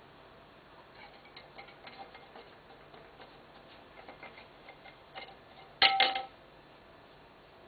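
Light clicks and clinks of dishes as a civet picks through dinner leftovers, then a louder double clatter of a dish with a short ringing note about six seconds in.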